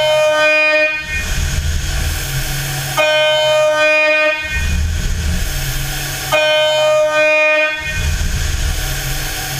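Spindle of a FOOKE ENDURA 704LINEAR gantry milling machine machining carbon-fibre composite: a high whine with overtones that sounds for about a second or a second and a half, three times at roughly three-second intervals, alternating with a low rumble.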